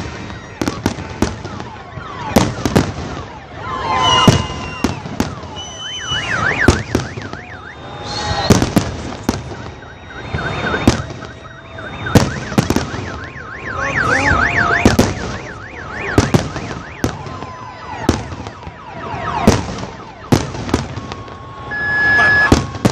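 Fireworks display: shells bursting in a long series of sharp bangs and crackles. Twice a warbling alarm tone sounds between the bursts.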